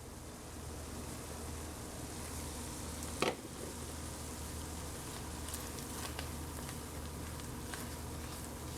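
Oil sizzling in a skillet as flour and chopped onion, celery and bell pepper cook into a roux for gravy. A single sharp knock comes about three seconds in, with faint scattered ticks throughout.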